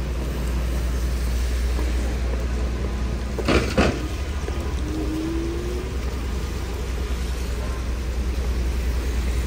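City street traffic on wet roads: a steady low rumble of passing cars and buses. About three and a half seconds in there are two quick loud knocks, followed shortly by a faint rising tone.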